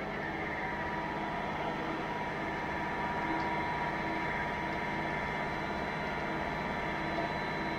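CNC milling machine cutting an aluminium part: the spindle runs and the milling cutter cuts steadily, a constant machining noise with a steady whine, stepping up slightly as the cut begins.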